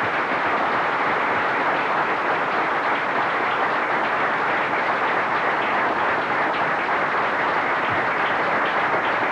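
Large audience applauding, a steady, dense clapping that holds at one level throughout.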